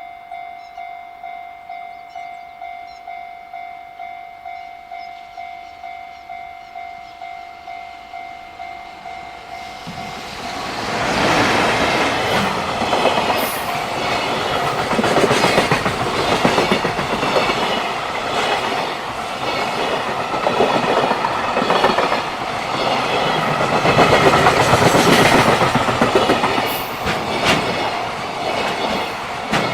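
Japanese level-crossing warning bell ringing in a steady, rapid ding-ding, about two strikes a second. About ten seconds in a train arrives and runs past loudly, its wheels clattering rhythmically over the rail joints and drowning out the bell.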